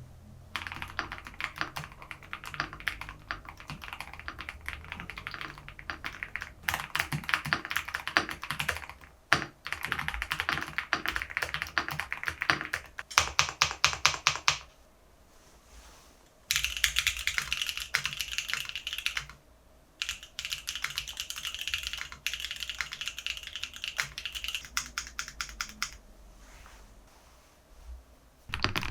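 Fast typing on a custom mechanical keyboard, in several runs of rapid keystrokes with short pauses between them. The keystrokes after the longest pause, about halfway through, sound brighter and higher-pitched than the earlier ones.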